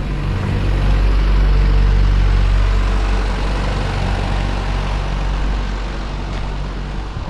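Motor vehicle driving: a steady low engine hum under rushing road and wind noise, swelling a little in the first few seconds and then easing.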